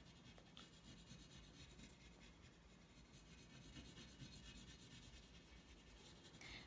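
Faint scratchy rubbing of an oil pastel stick worked across paper as colour is laid on.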